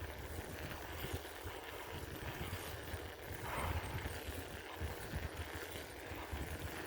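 Wind buffeting the microphone in uneven low gusts over a steady hiss of moving air during a bicycle ride.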